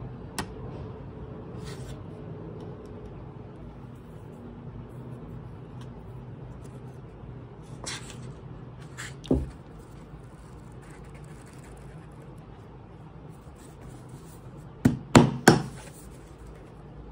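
Handling of a paperback manga volume: soft page and cover rustles, a dull thump about nine seconds in, and three sharp knocks in quick succession near the end, over a low steady hum.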